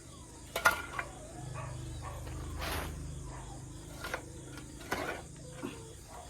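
Shovel scraping and knocking as dried chicken manure is dug out and bagged: several separate scrapes and knocks spread across a few seconds.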